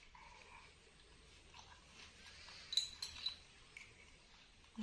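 Small metal spoon clinking lightly against a small ceramic cup a few times, about three seconds in, as liquid medicine is scooped up.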